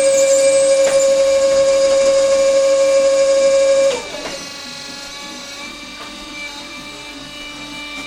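Sike S-520 truck tyre changer running: a loud steady mechanical whine that cuts off abruptly about four seconds in, leaving a quieter steady hum.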